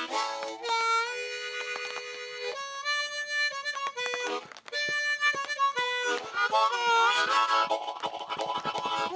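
Harmonica played solo, cupped in the hands. It plays slow held notes and chords with a few bent notes, then turns to a busier, faster passage about six seconds in.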